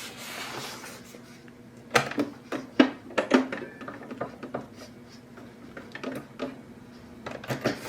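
A few sharp clicks and knocks from hands working a sewing machine and shifting the paper under its needle, bunched about two to three and a half seconds in and again near the end, with no motor running.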